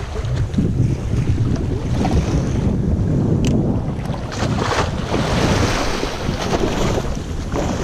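Wind buffeting the microphone over choppy open sea, with water slapping against a small boat's side; partway through, a wave surges up and splashes against the side of the boat.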